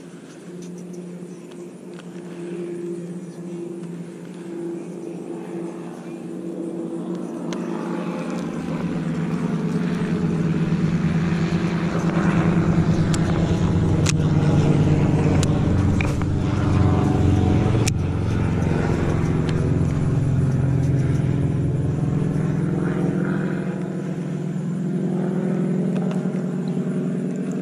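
A motor's drone that builds up over several seconds, holds loud through the middle and slowly fades, with a few sharp clicks around the middle.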